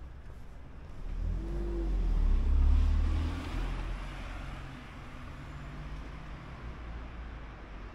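A car driving past on the street: its engine and tyre noise swell about a second in, are loudest near three seconds, then fade away.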